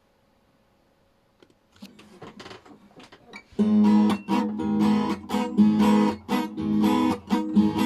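Acoustic guitar intro: a few soft plucked notes about two seconds in, then steady rhythmic strummed chords from about three and a half seconds.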